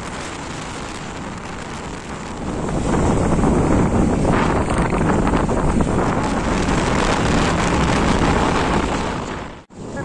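Wind rushing over the microphone of a moving vehicle, with road and engine noise underneath. It gets louder about two and a half seconds in and drops out abruptly just before the end.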